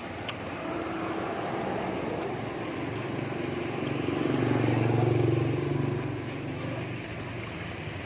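A motor vehicle passing by: an engine hum that grows louder to a peak about five seconds in, then fades away. A single light click sounds just after the start.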